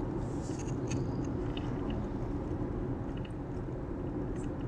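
Steady road and tyre noise inside the cabin of a Hyundai Ioniq 5 electric car driving at about 70 km/h, with no engine sound. A few faint, light clicks and ticks sit over it.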